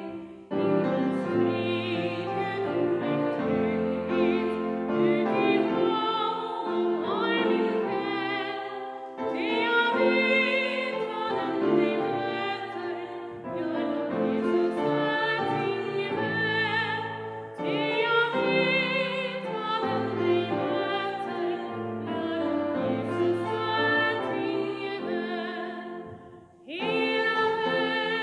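A woman singing a hymn solo in a vibrato voice over instrumental accompaniment, phrase by phrase with short pauses for breath between lines.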